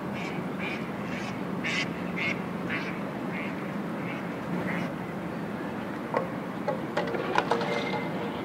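A duck quacking repeatedly, about two short calls a second for the first five seconds, over the steady drone of the tour boat's engine and the water. A few sharp clicks and knocks come in near the end.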